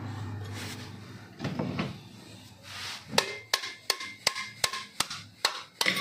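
Microwave magnetron's sheet-metal back cover being worked loose and opened: a soft knock, then a quick regular run of sharp metallic clicks, about three a second, with a brief ring after each, in the second half.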